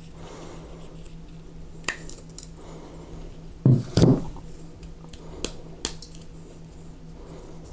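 Small clicks and taps of a pistol's grip screws and grip panel being worked free by hand, with two louder knocks about four seconds in.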